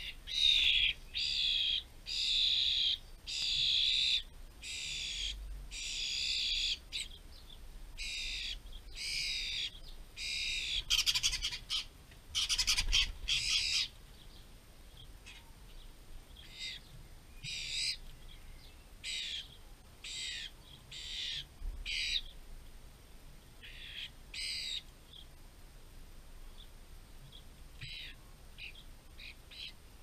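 A fledgling starling begging from its parent: a long series of harsh, rasping calls repeated about every half second to a second, loud at first and fainter and more spaced out in the second half, with a denser scratchy burst near the middle.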